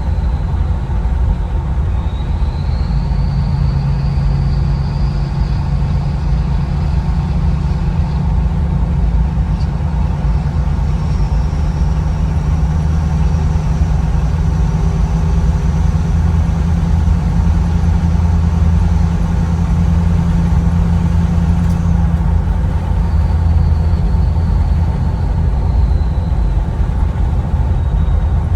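Ford 6.7 L Powerstroke diesel with a 5-inch, muffler-less, resonator-less exhaust and a Stage 1 KC Whistler turbo, heard from the cab with the window down: a steady low exhaust drone over road and wind noise. The turbo's high whistle rises about two seconds in, climbs higher around the middle and falls away near the end.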